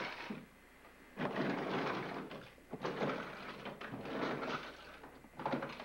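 Plastic toys and blocks clattering and rattling in several bursts as a toddler rummages through a plastic toy bin.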